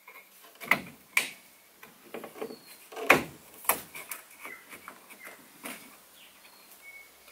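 Stainless steel window trim being pressed and clipped by hand onto the rear window frame of a car: a series of irregular clicks and knocks, the loudest about three seconds in.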